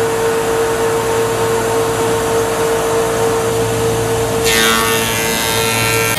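Industrial four-sided wood planer running with a steady hum while a weathered barn board is fed in by hand; about four and a half seconds in, a harsher, higher whine sets in as the cutterheads bite into the board.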